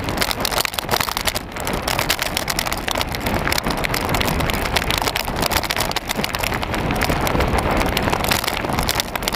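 Onboard sound of a mountain bike riding over a gravel farm track: wind buffeting the microphone over a dense, unbroken crackle and rattle from the tyres on the gravel and the shaking bike.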